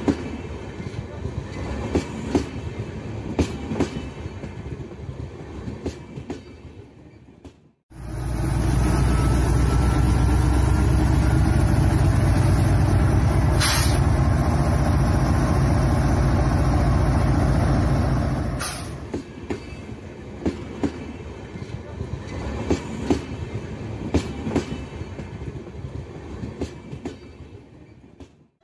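HO-scale model train running on its track, the wheels clicking rapidly over rail joints and fading out. About eight seconds in, a loud, steady low rumble from the model diesel locomotive starts and runs for about ten seconds, with one sharp click in the middle. The rail-joint clicking then returns and fades away.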